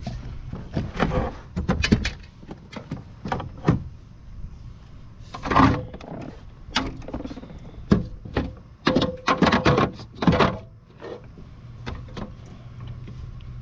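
Irregular knocks, clatters and thumps of gear being handled on a fishing kayak, with louder clusters about halfway through and again about two-thirds of the way in.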